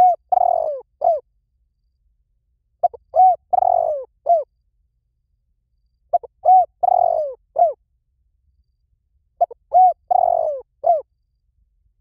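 Spotted dove cooing its three-part call, a short coo, a longer rolling coo and a clipped final coo, repeated four times about three seconds apart. This is the call used as a lure to bring in wild spotted doves.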